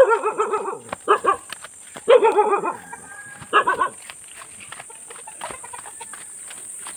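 A domestic animal calling: four loud, wavering cries in the first four seconds, each under a second long, then it falls quiet.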